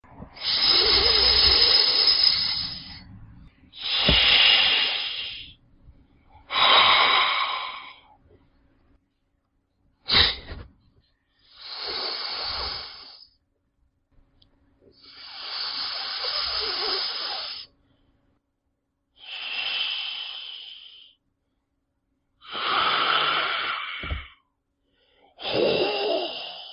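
A snake hissing about nine times in separate breaths of one to three seconds each, one very short, with silence between them.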